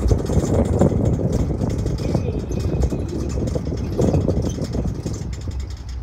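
Safari vehicle driving slowly on a gravel road: the engine runs steadily under a dense rumble of tyres on gravel, with irregular crackling clicks throughout.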